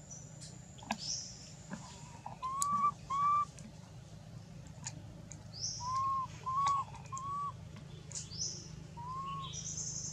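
Short whistled calls: clear arched notes, each a fraction of a second, coming in twos and threes, with thin, very high chirps between them.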